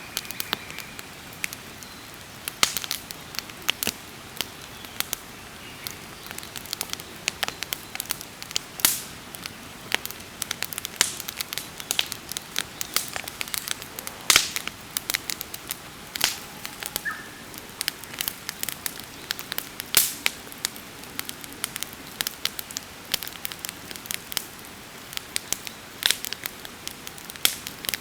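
Wood campfire burning: a steady soft hiss with irregular sharp crackles and pops, a few louder snaps among them.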